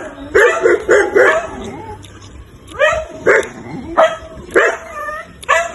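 Short, pitched animal calls, a quick run of four or five in the first second and a half, then five more spaced about half a second apart from about three seconds in.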